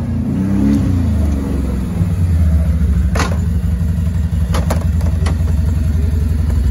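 Can-Am Outlander Max 570 XT ATV's V-twin engine running as the quad rides up and slows to a stop, then idling steadily with an even rapid pulse from about two seconds in. A few light clicks come midway.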